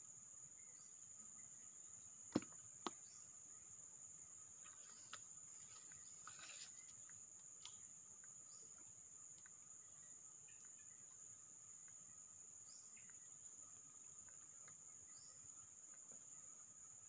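Faint, steady high-pitched drone of forest insects. Two sharp clicks about two seconds in, half a second apart.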